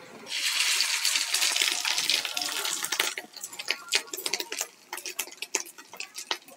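Fish-roe fritter batter frying in hot oil in a kadai: a loud sizzle starts about a third of a second in, as the batter goes into the oil. After about three seconds it settles into scattered crackles and pops.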